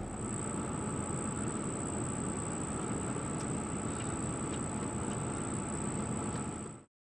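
Steady outdoor background rumble with a continuous thin high-pitched tone over it, cutting off abruptly near the end.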